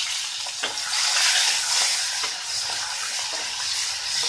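Salt-and-turmeric-coated prawns sizzling in hot oil in a kadai, a steady hiss with a few faint ticks, and a wooden spatula stirring them near the end.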